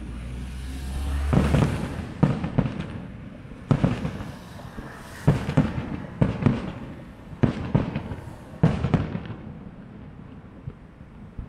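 Aerial fireworks shells bursting over the river: a quick series of about a dozen sharp booms, some close together in pairs, dying away near the end.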